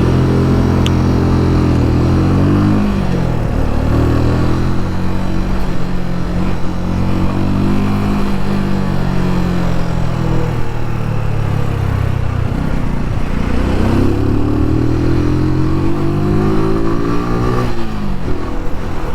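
Keeway Superlight 125's single-cylinder 125cc engine pulling through the gears while riding, its pitch rising under acceleration and dropping back at each shift or roll-off, several times over.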